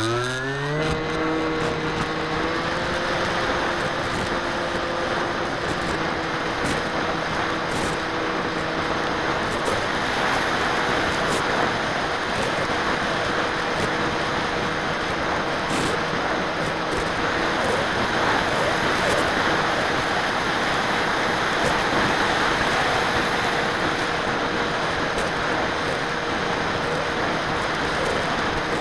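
Motor and propeller of an FPV model aircraft heard from its onboard camera: the drone finishes rising in pitch as the throttle comes up in the first couple of seconds, then holds steady. A loud rush of air over the camera's microphone runs under it.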